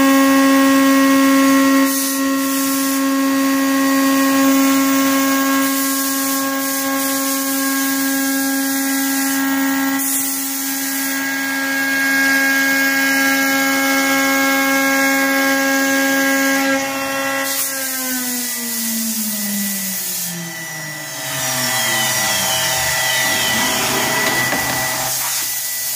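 CNC router spindle whining at a steady high pitch, then spinning down with a falling whine after it is switched off, about two-thirds of the way through.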